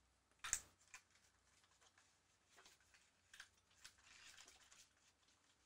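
Mostly near silence, with a few faint rustles and light taps of paper card being handled and slid on a table; the loudest is one short brushing sound about half a second in.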